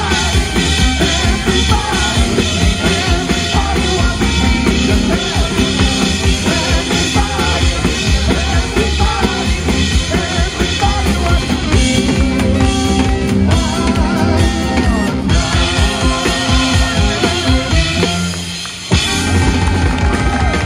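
Live band playing a loud, up-tempo number driven by a drum kit. The band stops briefly near the end and then comes back in.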